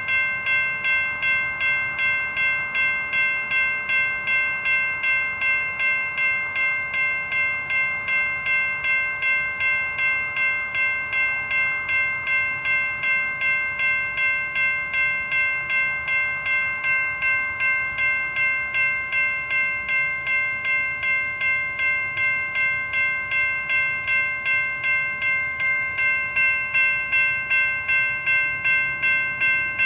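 Safetran electronic railroad crossing bell ringing steadily at about two strokes a second, each stroke the same bright multi-tone ding. It keeps ringing because the crossing is active with a train standing in it.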